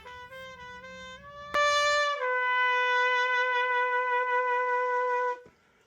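Short closing music: a single brass-like tone steps up through several short notes, then holds one long note that cuts off suddenly near the end.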